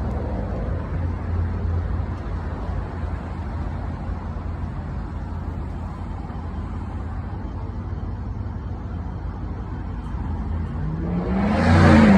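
Steady low engine rumble, then a vehicle passing close by near the end, its pitch rising and then falling as it goes past.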